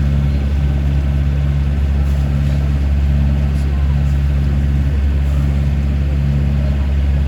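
Boat engine running steadily, a constant low drone heard from on board.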